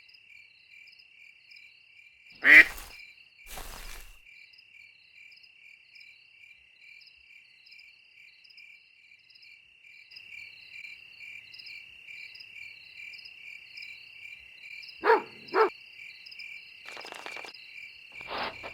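Steady, evenly pulsing night chirping of crickets and frogs. A short loud animal call cuts in about two and a half seconds in, and two quick short calls follow about half a second apart near the end.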